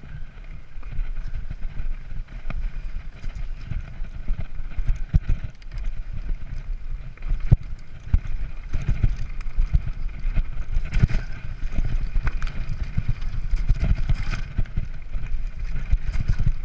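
Mountain bike riding fast over a rough, stony trail: a constant rumble of tyres on gravel, with frequent knocks and rattles as the wheels strike rocks, and wind buffeting the microphone.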